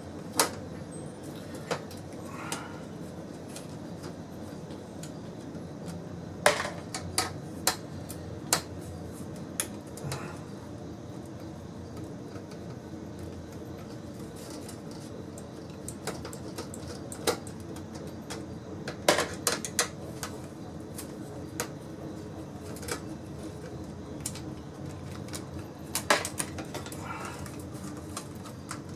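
Scattered clicks and metallic clinks, some in quick clusters, as the sheet-steel chassis and circuit boards of an LCD monitor are handled and taken apart, over a steady low hum.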